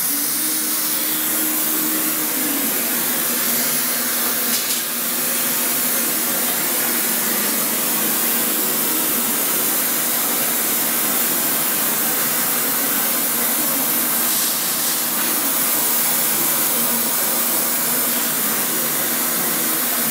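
A steady, loud rushing of air, like a blower or extractor running, with a faint hum that drops slightly in pitch about two and a half seconds in.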